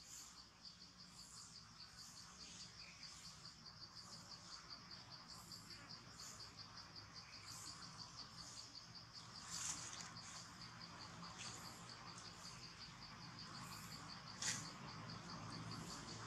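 Faint insect chorus in forest: a rapid, steady high-pitched trill with a softer chirp repeating a little under once a second. Two brief soft clicks come around the middle and near the end.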